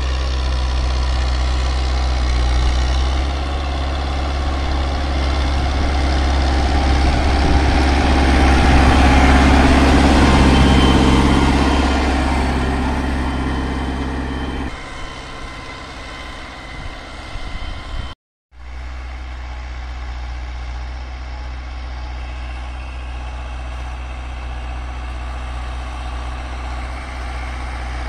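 Farm tractor's diesel engine working under load as it pulls a tined cultivator through tilled soil, a steady low drone. It grows louder toward the middle as the tractor comes close, changes abruptly about halfway through, and cuts out for a moment before running on steadily.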